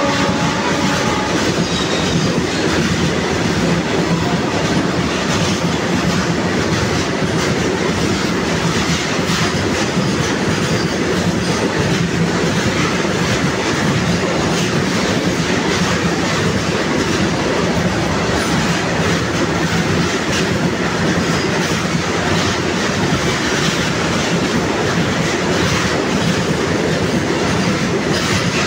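Goods train running through a station at speed: a steady loud rumble of freight wagon wheels on the rails with fast clickety-clack over the rail joints. A train horn tails off about a second in.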